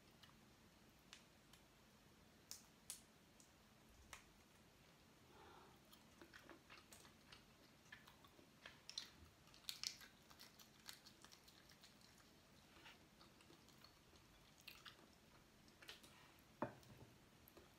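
Quiet chewing and eating of boiled crab and shellfish by hand: scattered short, wet clicks and smacks, the sharpest one near the end.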